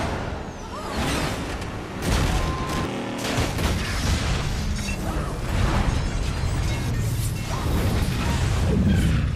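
Action-film soundtrack: music mixed with a run of booms and crashes from explosions, several sudden blasts spread through the stretch.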